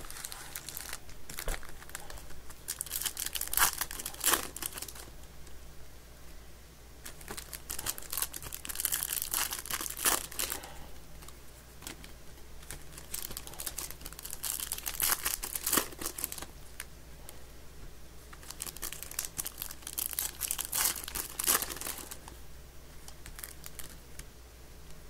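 Foil trading-card pack wrappers being torn open and crinkled by hand, in about four bouts of rustling and tearing over a faint low steady hum.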